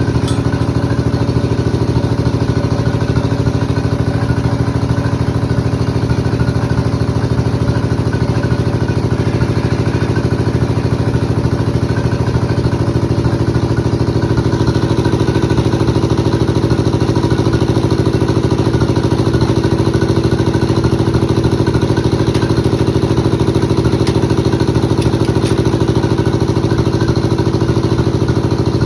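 Engine of a log bandsaw mill running steadily at idle, a constant low hum with a fast even beat and no change in speed.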